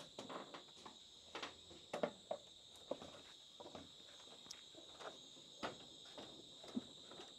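Faint footsteps and scattered knocks on wooden planks as a brush cutter is handled and set against a plank wall, over a steady high insect drone.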